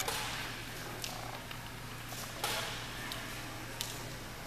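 Quiet room tone: a steady low hum with a few short, sharp clicks and knocks, about one every second or so.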